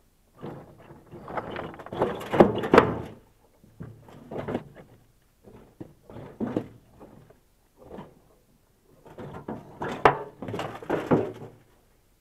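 Large rough stones grinding and knocking against one another and against a metal wheelbarrow as they are shifted by hand. The sound comes in irregular scraping bouts with a few sharp clacks, loudest about two and a half seconds in and again about ten seconds in.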